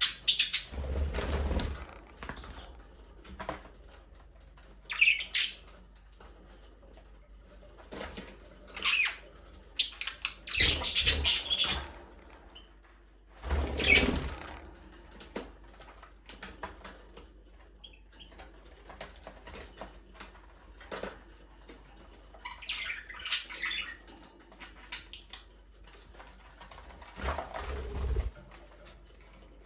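Budgerigars chirping in several short bursts, with wings flapping a few times.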